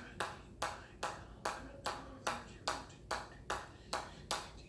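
Hammer striking in a steady rhythm, about two and a half sharp, ringing taps a second, each one a counted rep in an unbroken run.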